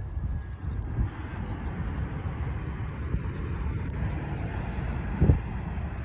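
Airplane engines giving a steady rumbling roar, with two short low thumps, about a second in and near the end.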